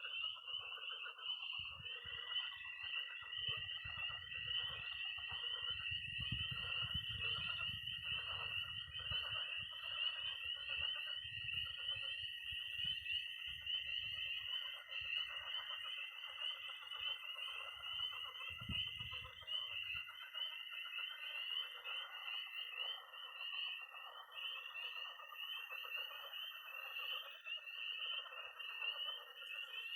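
Early-spring night chorus of frogs and toads: spring peepers peeping densely and continuously, with a long, steady, high-pitched toad trill that starts about two seconds in and stops after about twenty seconds, over lower croaking from frogs in a pond. A low rumble sits beneath the chorus for the first two-thirds.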